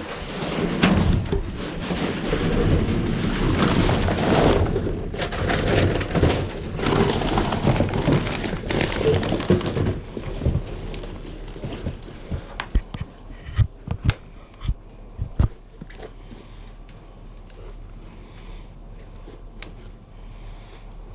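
Trash and debris rustling and crackling as it is rummaged through inside a dumpster, loud and continuous for about the first half, then quieter with scattered sharp knocks and clicks.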